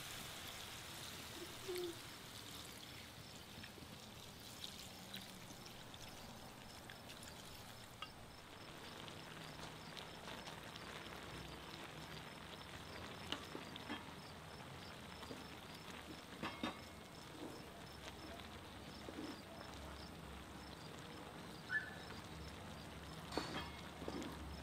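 Liquid poured into a cast-iron pan of tagliatelle and cherry tomatoes, then the pan simmering, with a quiet steady hiss and scattered small pops and clicks.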